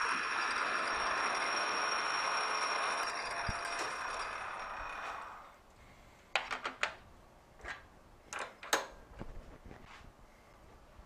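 Metal lathe running with the three-jaw chuck spinning, a steady machine noise with a few high fixed tones. About five seconds in it is switched off and runs down to quiet. Then come several sharp metallic clicks and knocks from the tool post being handled.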